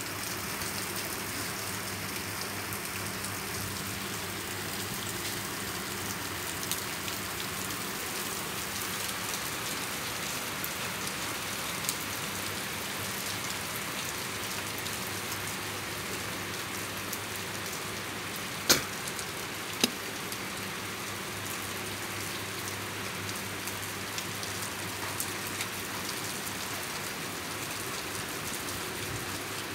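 Heavy rain pouring steadily onto a flooded flat concrete roof, splashing into standing water. Two sharp knocks about a second apart stand out about two-thirds of the way through.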